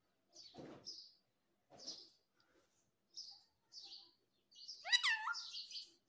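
A rose-ringed parakeet (Indian ringneck) giving short, high chirps every second or so, then a louder call about five seconds in that slides up and down in pitch.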